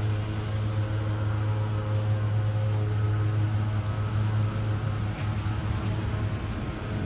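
Steady low mechanical drone with a constant hum and overtones, holding an even pitch throughout.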